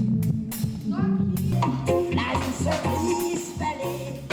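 A rock band playing loosely during a soundcheck: held bass notes under drum and cymbal hits.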